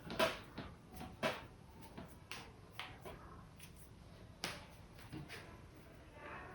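Hands massaging a head: irregular sharp pats and slaps on the head and skin, about one a second, with faint rubbing between them.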